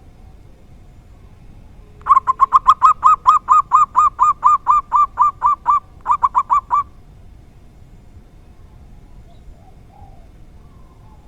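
Zebra dove (perkutut) calling: a loud, fast run of clear repeated cooing notes, about five a second, for nearly four seconds, then after a short break a few more quick notes.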